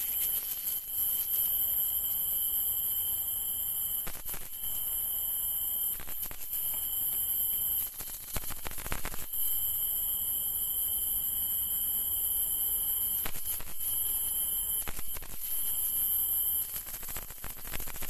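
Steady, high-pitched chirring of night insects, with a few short handling noises, the longest about halfway through.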